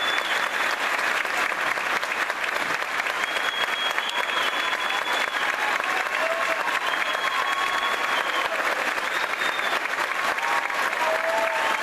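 Concert-hall audience applauding steadily, with a few brief high steady tones sounding above the clapping now and then.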